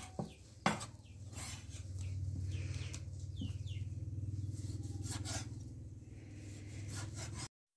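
A knife slicing raw pork on a wooden chopping block, with a couple of sharp taps against the board. Chickens peep now and then in the background over a steady low hum.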